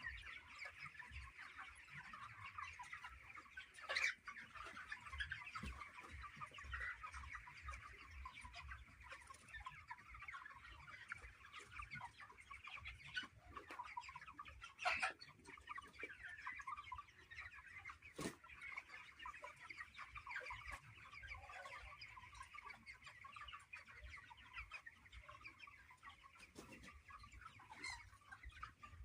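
A large flock of chickens calling at once, a steady dense chatter of many overlapping calls, with a few sharp knocks, the loudest about four seconds in.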